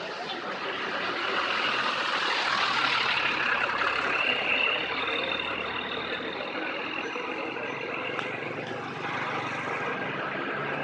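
Large bus on the road, a steady rush of engine and tyre noise that swells over the first few seconds and then eases off.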